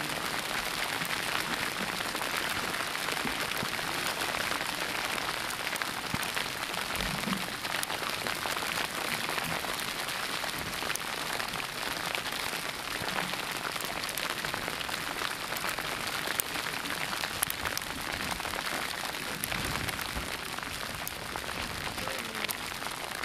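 Hail falling steadily: a dense, even pattering of many small ticks.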